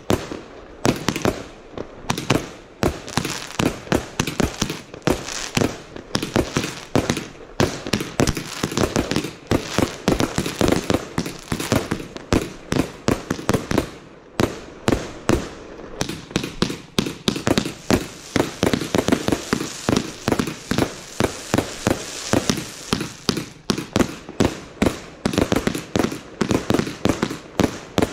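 Consumer firework barrage cakes firing: a rapid, unbroken run of shots and bursting stars, several bangs a second.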